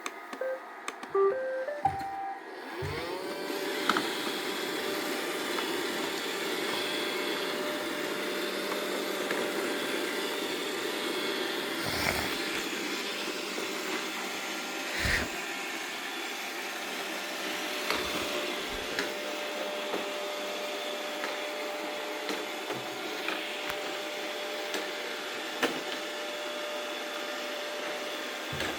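A short run of electronic beeps, then a robot vacuum cleaner's motor spins up with a rising whine about three seconds in. It then runs steadily with a constant hum and occasional knocks.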